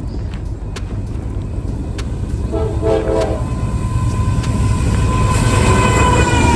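Diesel freight train approaching, its low rumble growing louder. The locomotive horn sounds a short blast about two and a half seconds in, then a long blast from about four seconds on.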